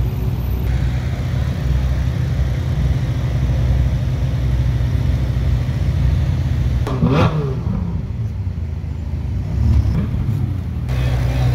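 Ferrari sports-car engines rumbling at low speed as the cars move off, with one engine revved hard about seven seconds in, its pitch climbing sharply and then falling back as the car accelerates away.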